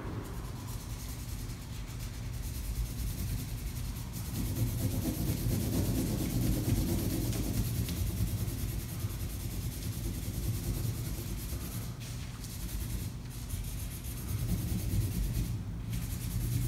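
Felt-tip marker pen rubbing back and forth across paper as an area of a drawing is coloured in, with a few brief pauses between strokes.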